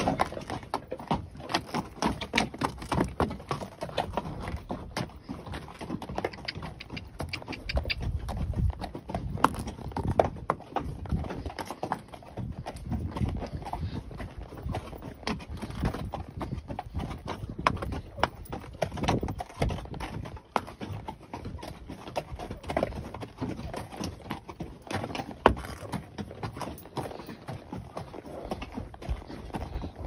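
Hoofbeats of a gaited molly mule moving along a rocky dirt trail: a continuous run of sharp clops and knocks as her hooves strike packed dirt and stones.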